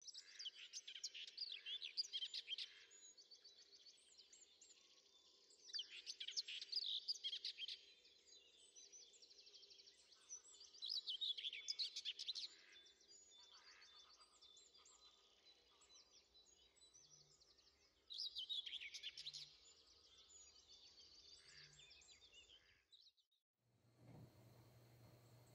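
A songbird singing four short phrases of rapid, high notes, each about two seconds long and a few seconds apart.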